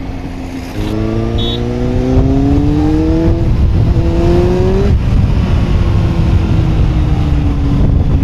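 Superbike engine pulling hard, its pitch climbing for about four seconds, dropping at a gear change about five seconds in, then running steadily at cruising speed. A steady low rush of wind and road noise lies underneath.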